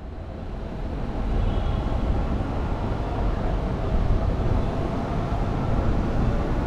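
Steady low outdoor background rumble with no distinct events, rising in level over the first second or so and then holding steady.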